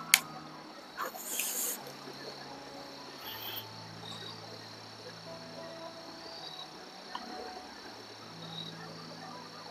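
Crickets chirring steadily and faintly in the background, with a sharp click right at the start and a brief hissing rustle about a second in.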